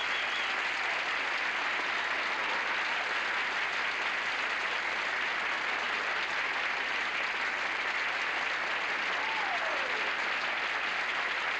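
Studio audience applauding steadily after a song ends, with one short falling tone near the end.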